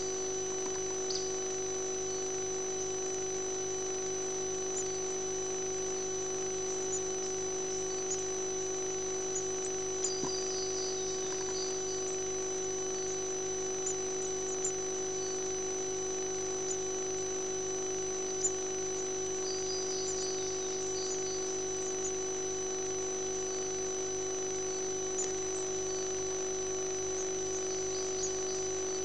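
Steady electrical hum and high whine from a nest-box camera system. Every ten seconds or so there are brief bursts of faint high chirping from the nestlings begging, along with a few small clicks.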